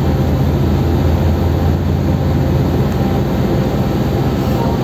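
The car ferry Emerald Karatsu's engines running with a steady low drone as the ship comes into port, under an even hiss of wind and water.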